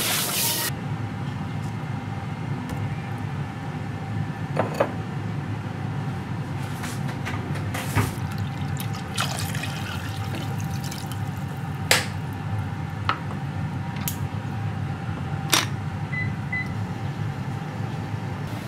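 Kitchen cooking sounds: a steady low hum with a brief rush of running water at the very start. Sharp clinks and knocks of cookware come now and then, about six in all.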